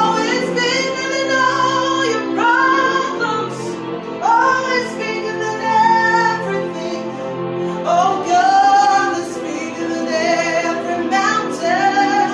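Woman singing a slow worship song over steady held accompaniment chords. Her phrases begin every two to four seconds, each rising into a long held note.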